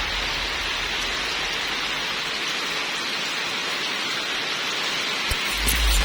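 Steady rain falling, an even hiss; a low rumble comes in near the end.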